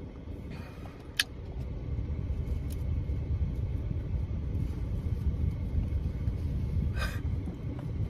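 Low, steady car rumble that grows a little louder after the first couple of seconds, with a sharp click about a second in.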